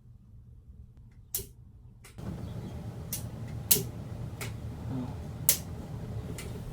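Firecrackers going off in a cooking pot: a few sharp pops at uneven intervals over a steady hiss that starts about two seconds in.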